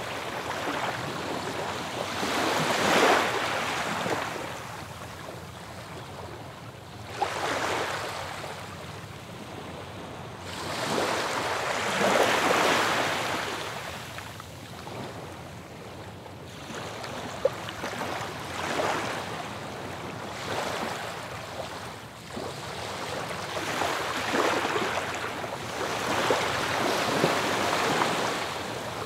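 Ocean waves breaking on a beach, each surge of surf swelling and washing back in a rhythm of roughly one wave every four to six seconds.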